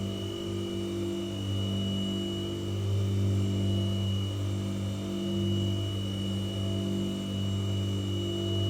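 White noise sound machine running: a steady low drone with a thin high whine above it, its low hum gently swelling and easing every second or two.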